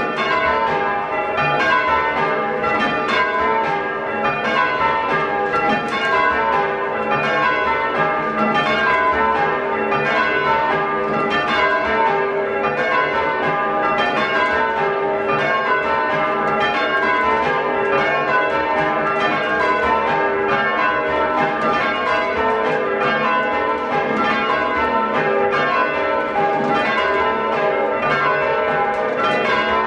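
A ring of six church bells, tenor 8-3-22 cwt tuned to G, being rung full circle in changes. The strikes come in a steady, unbroken stream, heard from the ringing chamber beneath the bells.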